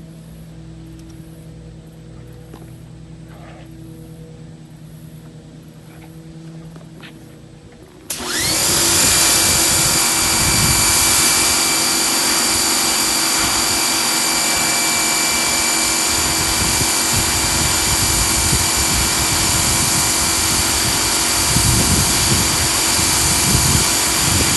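A faint hum with a few light clicks, then about eight seconds in an electric pressure washer starts suddenly and runs steadily: a loud motor-and-pump whine over the hiss of the water jet from its 15-degree nozzle.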